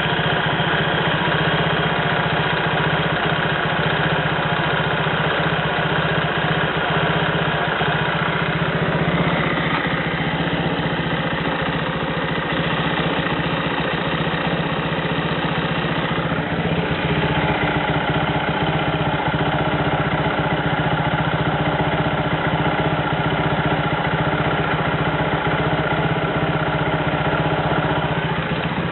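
Suzuki GSR 125 scooter engine idling steadily, recorded for an abnormal noise the owner hears in it. Its tone shifts slightly a couple of times.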